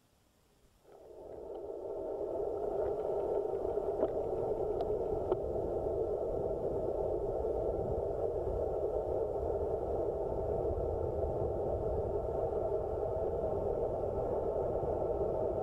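Steady rushing road and wind noise from a road bike descending fast at night, coming in about a second in and holding steady, with a few faint clicks.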